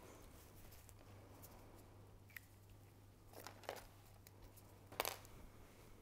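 Near silence: room tone with a steady low hum and a few faint short rustles and clicks, the loudest about five seconds in.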